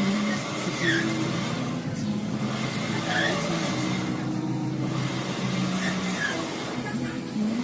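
Arcade noise: electronic game sounds with engine-like, racing-game effects running steadily over a background din.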